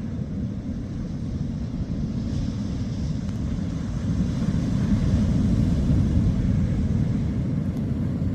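Sea surf: waves breaking and washing in, a steady low rumble that swells about four seconds in.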